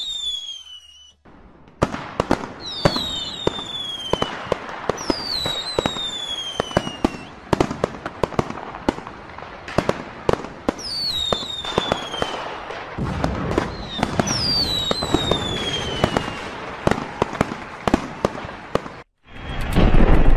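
Fireworks going off: a dense run of cracks and bangs, with several whistling rockets whose whistles fall in pitch. About two-thirds of the way through, a low rumble joins the cracking.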